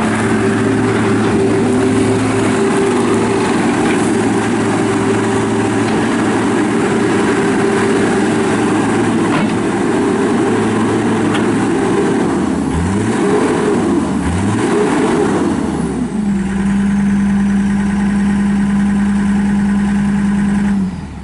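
2008 John Deere CT332 compact track loader's diesel engine running at high revs. About halfway through its pitch drops and climbs back twice, then it settles to a lower steady idle and shuts off near the end.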